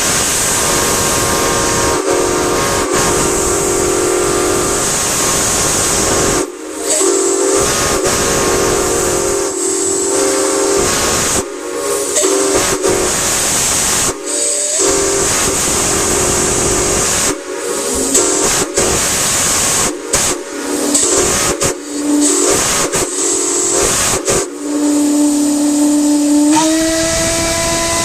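Multi-chime steam whistle sounding a chord over loud steam hiss, in long blasts broken by short pauses and a run of quick toots. Near the end the chord steps slightly higher in pitch.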